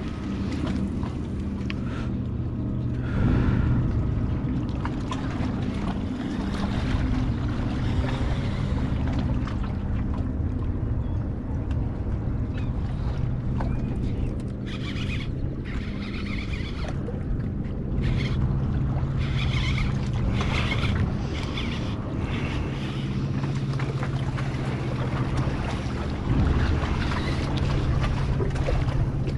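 A boat engine running as a steady low drone, with wind buffeting the microphone.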